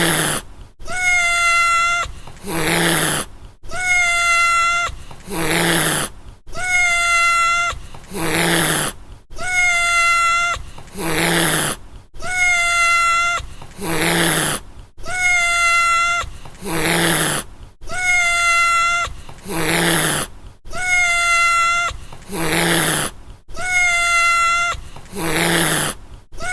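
A cat's single held meow followed at once by a short hiss, the same pair repeating evenly about every two and a half seconds, about ten times.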